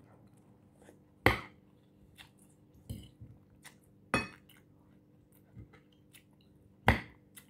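Metal fork clinking against a ceramic plate three times, about three seconds apart, with quieter crunching clicks of chewing lettuce in between.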